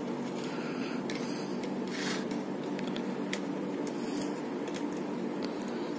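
Scattered small clicks and short scrapes of a screwdriver and wire being worked into the screw terminals of a plastic switch-and-socket board, over a steady low hum.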